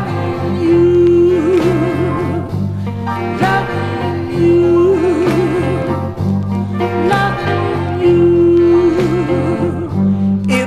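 Slow soul song playing: a singer holds long notes that waver into vibrato over a steady bass line.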